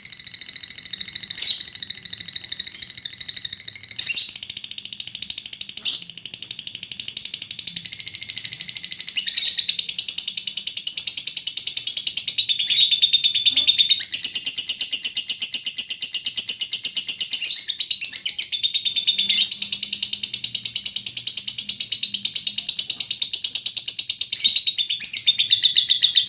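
Lovebird's long chatter (ngekek): a very fast, high-pitched trill of buzzy notes that runs on without a break, shifting in pitch now and then.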